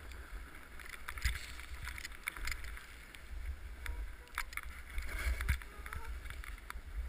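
Snowboard sliding and turning through soft snow: a continuous swishing hiss with scattered sharp clicks and knocks, over a low rumble of wind on the microphone.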